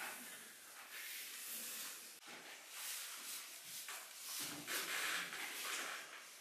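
Pencils sketching on paper: faint, irregular scratchy strokes.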